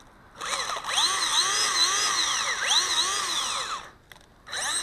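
Brushed electric motor and gear drivetrain of a 1/18-scale RC short course truck whining, the pitch surging up and down several times over about three and a half seconds, then a second short surge near the end. A rear wheel keeps locking up, which the driver can't explain.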